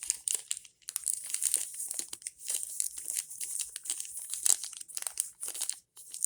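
Small toy blind-bag wrapper being crinkled and torn open by hand, a busy run of sharp crackles.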